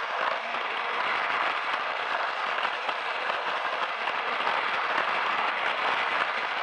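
Plarail toy shinkansen running on plastic track, heard from a camera riding on it: its small battery motor and gears whirring and the wheels rattling on the plastic rails as a steady, dense crackle.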